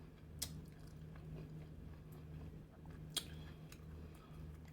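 Faint close-up chewing and biting of a person eating seafood, with two sharp clicks, about half a second in and about three seconds in, over a low steady hum.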